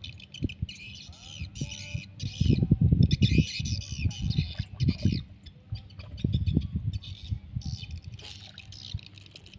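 Birds chirping and twittering, over repeated low rumbling bursts of noise that are loudest a few seconds in.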